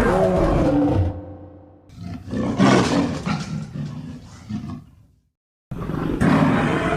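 Big-cat monster roar sound effect, lion-like: three roars in a row, the first fading out about a second and a half in, a longer second one, then a brief silence before the third starts near the end.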